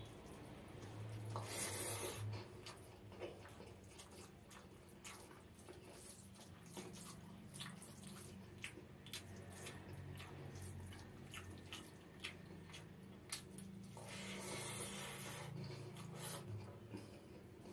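Close-miked eating by hand: wet chewing and lip smacks with many small clicks, as fingers squish rice into runny mustard gravy. Two longer squelching stretches, about a second in and again near the end, are the loudest parts.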